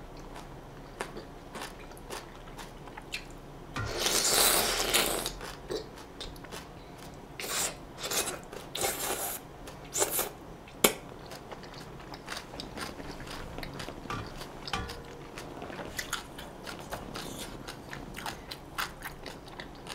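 Close-up eating sounds: a person biting, crunching and chewing food, with many short crisp crunches and a longer noisy burst about four seconds in.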